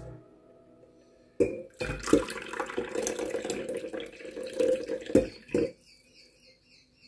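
Tea poured from a glass teapot into a glass cup: a running, splashing stream of liquid, with sharp glassy clinks as it starts, about a second and a half in, and again near the end of the pour. A faint, high, repeated chirping follows in the last second.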